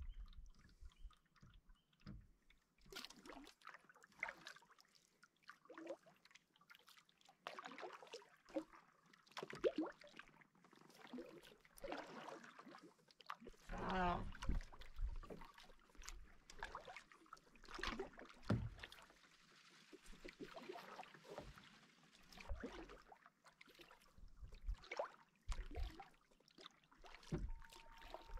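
Canoe paddles dipping and pulling through calm water, a soft splash and drip every couple of seconds, with water lapping at the hull.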